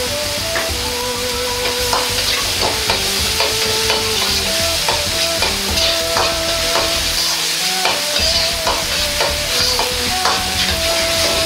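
Minced garlic and onions sizzling in oil in a wok, with a metal wok ladle scraping and clinking against the pan as it stirs them, the ladle strokes coming irregularly every fraction of a second.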